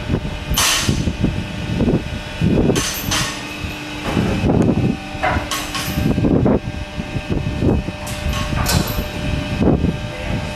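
Irregular knocks and rustles, roughly one a second, as a liner is handled and fitted into a steriliser's metal waste drawer, over a steady machinery hum.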